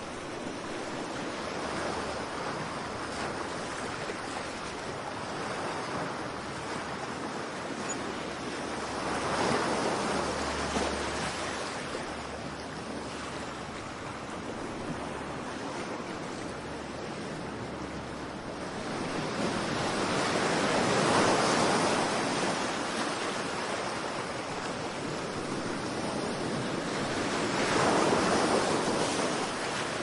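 Whitewater river rapids rushing over boulders: a dense, steady rush of water that swells louder three times, about a third of the way in, around two-thirds of the way and near the end.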